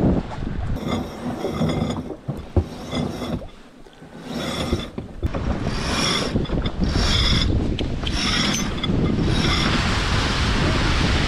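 A sailboat line hauled in repeated pulls through its blocks or winch, each pull a short whirring whine, about ten pulls in a row. It gives way to a steady rush of wind and water near the end.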